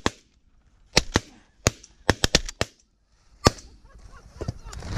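A volley of shotgun shots from several hunters firing at snow geese: about eight sharp blasts, four of them in quick succession near the middle.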